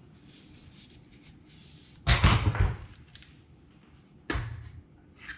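Handling noises as rifle parts and a small hand tool are worked at a bench gun vise: a loud scraping clatter about two seconds in, then a single knock a little after four seconds.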